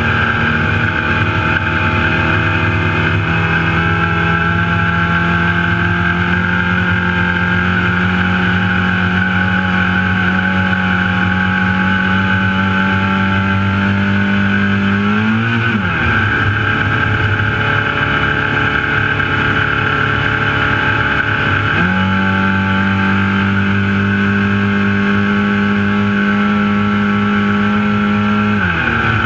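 Trophylite desert race truck's engine running hard at a steady high speed, with constant road and wind rumble. Its pitch drops sharply about halfway through and again near the end as it comes off the throttle, and it climbs back up about three-quarters of the way through.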